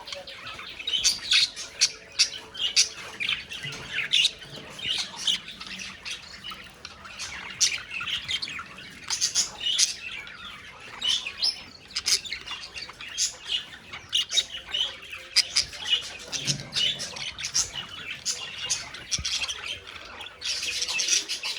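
Budgerigars chattering and squawking, a dense, unbroken run of short high chirps and calls.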